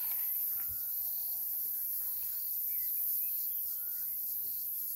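Steady high-pitched insect chorus in the bush, with a few short bird chirps and whistles scattered through it.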